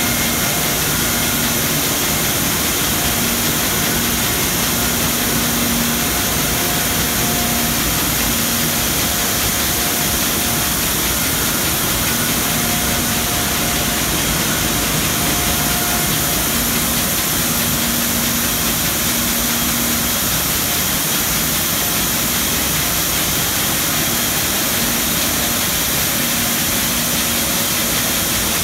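Muratec 802HR automatic cone winder and mill machinery running: a loud, steady hiss of air and machine noise, with a faint low hum and a higher tone that come and go every few seconds.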